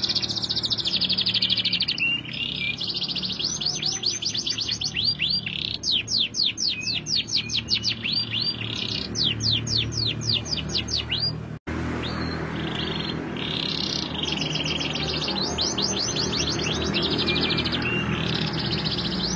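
Domestic canary singing: long rolling trills alternating with runs of quick down-sweeping notes, with a split-second dropout near the middle.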